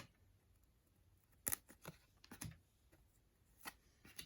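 Trading cards being handled and flipped through by hand: a few short, crisp flicks of card stock against card, the sharpest about a second and a half in.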